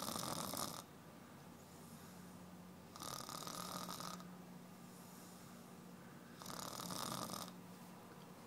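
A woman snoring in her sleep: three loud snores about three seconds apart, each lasting about a second, with quieter breathing between.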